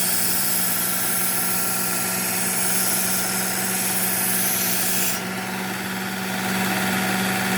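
Work Sharp Ken Onion belt sharpener's motor running steadily while a D2 steel knife blade is drawn across its 120-grit Cubitron belt, giving a hissing grind that stops about five seconds in as the blade comes off the belt. This is the first, coarse pass that raises a burr along the edge.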